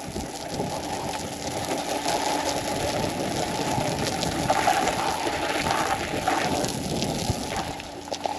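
Hose water spraying onto a truck's side and washing off mud, a steady splashing spray.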